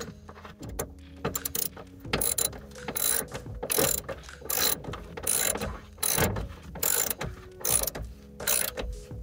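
Ratchet spanner working in repeated strokes, each stroke a short burst of clicking, about one every two-thirds of a second from about two seconds in, with a few loose clicks before: a seat belt anchor bolt being wound back in.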